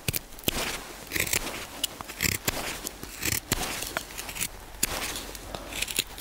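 Malanika puukko knife cutting dry spruce: a string of short, irregular slicing strokes as the blade bites into the wood.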